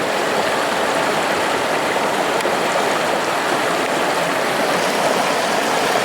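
Rushing mountain stream, a loud, steady churning of water.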